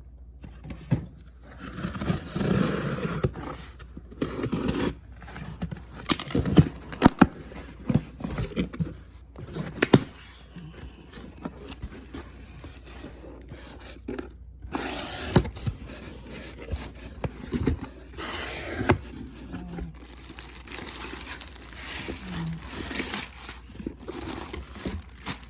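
A package being opened by hand: scraping, tearing and crinkling of packaging, with many short clicks and knocks as it is handled.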